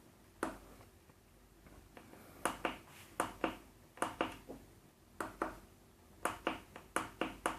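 Push buttons on an egg incubator's digital temperature and humidity controller being pressed over and over, a series of sharp clicks, some in quick pairs, as the humidity set value is stepped up or down.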